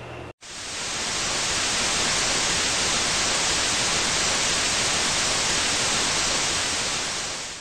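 Television-static hiss: an even, steady rush of noise that swells in about half a second in and stops abruptly at the end.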